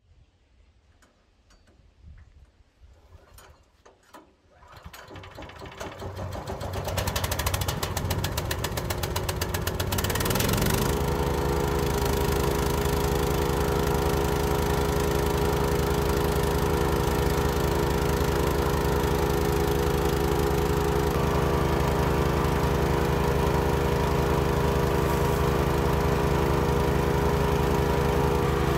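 Small petrol engine of a new wood chipper starting up. After a few faint knocks it builds over several seconds, rises in pitch about ten seconds in, and settles into a loud, steady run.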